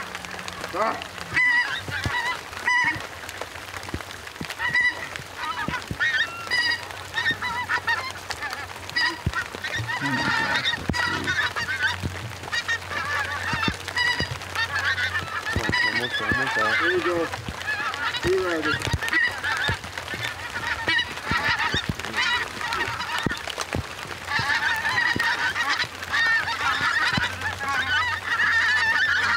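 A large flock of pink-footed geese calling overhead: many overlapping high, short honks that grow denser and louder in the last few seconds.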